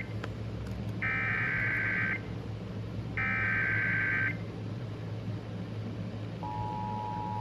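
Emergency Alert System broadcast over a radio: two of the buzzing SAME data-header bursts, each about a second long and a second apart, then from about six seconds in the steady two-tone attention signal that announces a warning.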